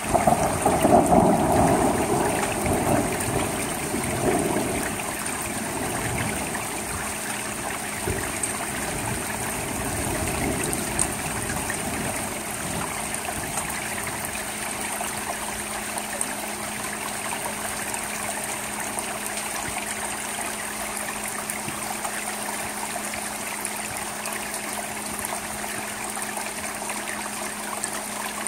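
Steady rain falling on a shingled roof edge and gutter, with water running and trickling. It is louder and fuller for the first four or five seconds, then settles to an even hiss.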